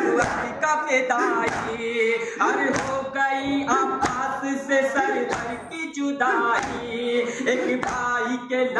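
Men chanting a Muharram noha (lament) together, with rhythmic hand strikes keeping the beat about twice a second.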